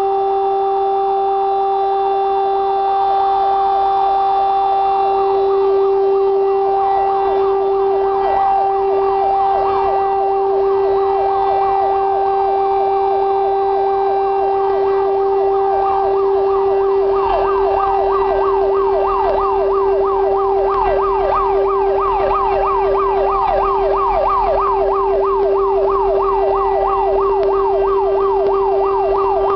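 An alarm siren holds one steady tone while a fire engine's siren sweeps rapidly upward over and over, several times a second, the sweeps growing stronger about halfway through. The fire engine's engine adds a low rumble in the second half.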